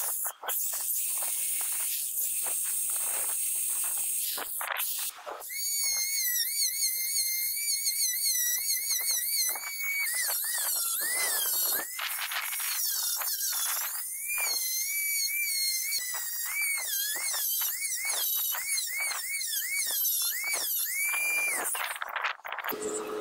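Rotary tool with a sanding drum grinding and polishing a steel hammer head held in a vise. For the first few seconds it is mostly a scratchy hiss; then, about five seconds in, a high motor whine comes in, its pitch dipping each time the drum is pressed against the metal. The whine stops shortly before the end.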